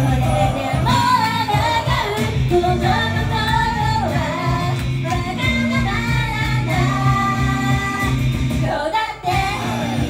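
Japanese idol pop song performed live: female vocals singing a melody over a loud backing track with a steady beat, the music breaking off briefly near the end.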